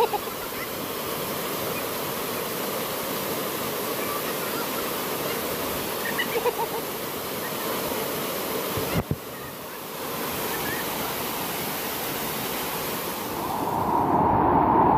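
Small waterfall pouring into a rock pool: a steady rush of falling and splashing water, with bathers splashing in it. It grows louder near the end as water splashes right at the microphone.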